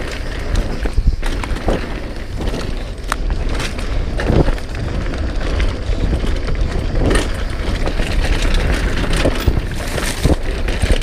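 Specialized full-suspension mountain bike ridden fast down a dirt trail: wind buffeting the camera microphone, tyres rumbling over the dirt, and the bike rattling with sharp knocks over bumps.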